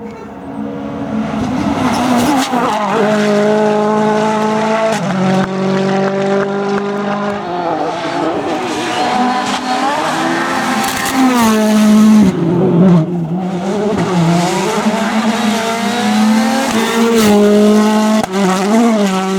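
Rally car engine revving hard, its note climbing and dropping in steps as the car shifts gear and lifts off, with tyres squealing at times.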